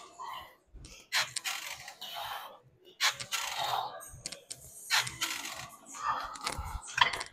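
Gym weights clanking: several sharp metallic clanks of weight plates and bar, a few every couple of seconds.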